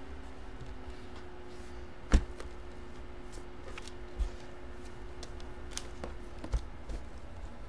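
Trading cards and their packaging being handled on a table: a sharp knock about two seconds in, two smaller knocks later, and light clicks and rustles, over a steady faint hum.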